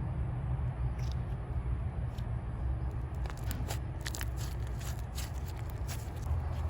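Thick white slime, with caramel syrup and clay apple pieces worked in, being squished and mixed by hand, giving many small scattered crackles and clicks.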